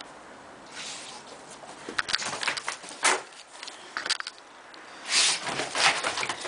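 Bull terrier's paws and claws scuffling and pattering on artificial-turf carpet as it dashes and spins in wild play, in irregular clicks and scrapes, with two louder rushing bursts about five and six seconds in.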